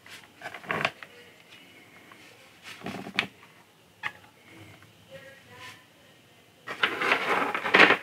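Hands handling and dry-fitting model kit parts: a few light clicks and taps as pieces are pressed together, then a longer rustle near the end as loose parts are picked from the tray.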